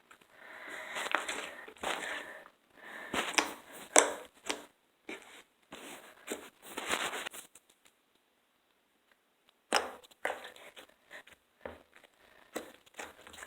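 Slime being squished and stretched by hand, making irregular crackling, squelching bursts, with a pause of about two seconds past the middle before the crackles resume.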